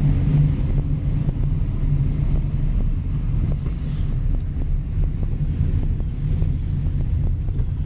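Car driving slowly: a steady low rumble of engine and road noise.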